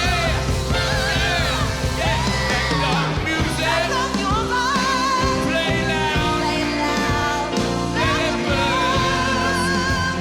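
Live rock music with powerful singing over a steady band, the vocal lines sliding and wavering.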